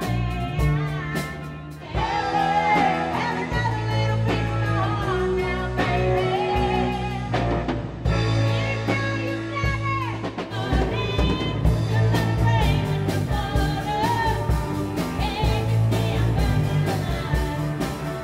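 Rock-and-blues band music: a lead singer over guitar, bass and drums, getting fuller about two seconds in.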